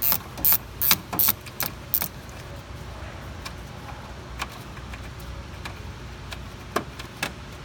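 Hand ratchet with a 12 mm socket clicking as a radiator mounting bolt is worked loose: about six sharp metallic clicks in the first two seconds, then a few fainter, scattered clinks.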